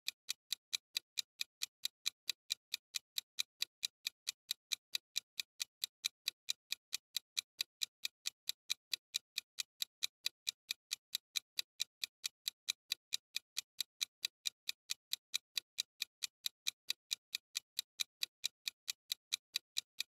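Countdown-timer clock-ticking sound effect: fast, even ticks, about four a second, counting down the answer time.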